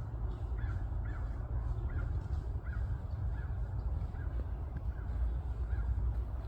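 A bird calling over and over, short calls repeated roughly every two-thirds of a second, over a steady low rumble.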